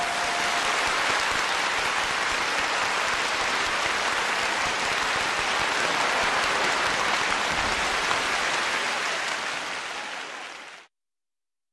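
Audience applauding steadily, easing off near the end and then cutting off suddenly.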